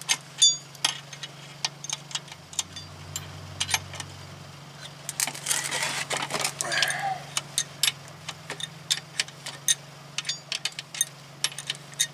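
Metal hand tools and steel bolts clinking and clicking in scattered sharp strokes as a wrench and bolts are handled at a truck's steel wheel hub and knuckle, with a steady low hum underneath.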